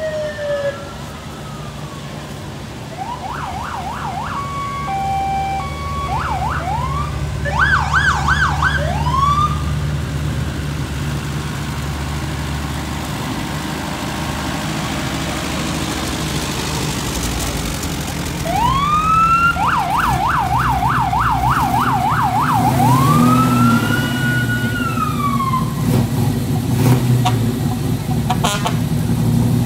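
Short bursts of an emergency vehicle's electronic siren, each a rising wail breaking into fast yelps: a few seconds in, again around eight seconds in, and longest about twenty seconds in. Under them runs the low, steady sound of slow-moving vehicle engines, among them an old farm tractor.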